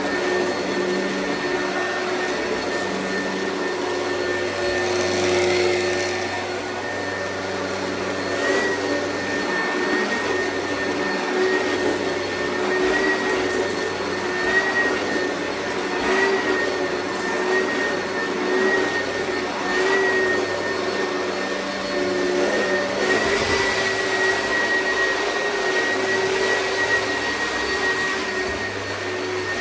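Oreck upright vacuum cleaner running steadily: a constant motor whine over rushing air, its pitch wavering slightly every second or two.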